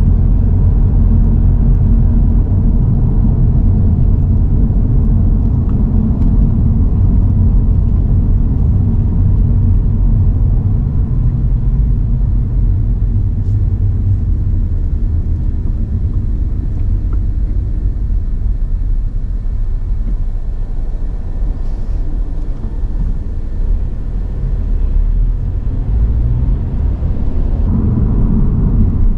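A car on the move: a steady low rumble of engine and road noise that eases somewhat partway through, then builds again near the end.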